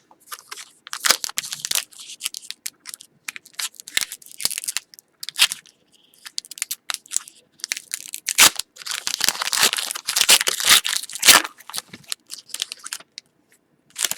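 Plastic foil wrapper of a hockey card pack being torn open and crinkled in the hands, a run of irregular crackles, loudest in a long crinkling stretch past the middle.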